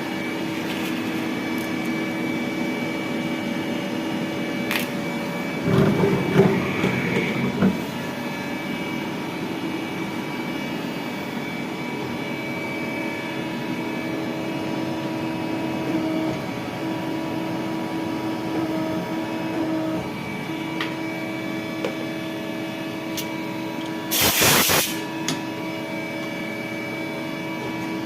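CNC lathe running on an M10x1 threading job, a steady machine hum with several held tones. It grows rougher and louder for a second or two about six seconds in, and gives a short loud hiss about twenty-four seconds in.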